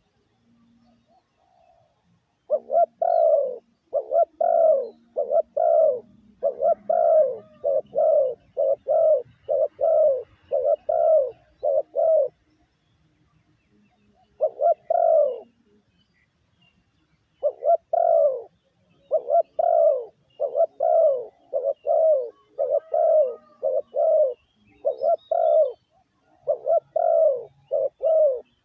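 Spotted dove giving its 'gù' cooing call, the call used to lure wild doves: long runs of short, low coo notes, several in quick succession. The cooing breaks off about twelve seconds in, gives one phrase around fifteen seconds, and starts again a little later.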